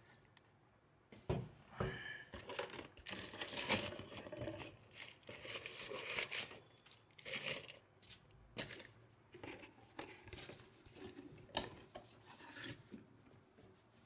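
Plastic air-column packaging crinkling and rustling in irregular bursts as it is handled, with the cardboard box shifting and being handled. It starts about a second in.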